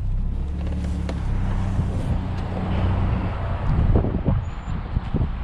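GMC Sonoma pickup's engine running with a steady low hum. The hum drops away about three seconds in, and a few short knocks follow.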